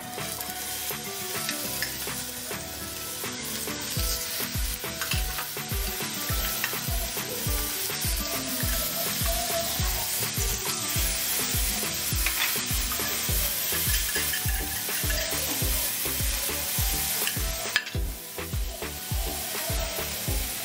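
Yellowfin tuna steaks sizzling as they fry in a hot grill pan, with a wooden spatula scraping and shifting them in the pan.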